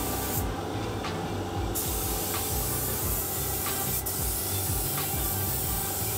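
Compressed-air paint spray gun hissing steadily as paint is sprayed onto the hull's interior, the hiss breaking off for about a second near the start before resuming. A single sharp click about four seconds in.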